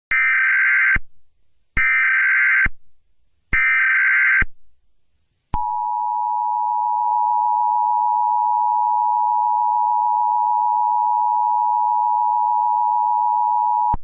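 Emergency Alert System tones. First come three bursts of digital SAME header data, each about a second long with short gaps between them. Then the two-tone attention signal, a steady dual-pitched beep, holds for about eight seconds, signalling that an alert (here a tornado warning) is about to be read.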